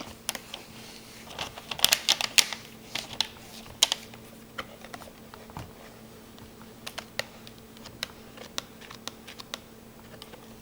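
Scattered light clicks and taps of hands working on a laptop, with a cluster in the first few seconds and sparser ones after, over a faint steady hum.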